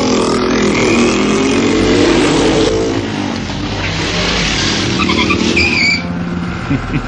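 Vehicle engine revving, rising and falling in pitch, followed by a high tyre squeal that cuts off about six seconds in.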